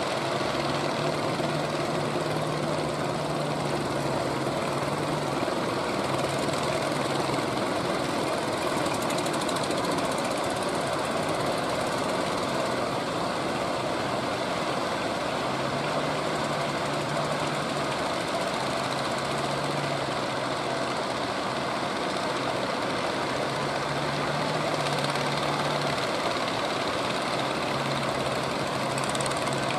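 Fishing boat engine running steadily, with a low drone that fades in and out every few seconds.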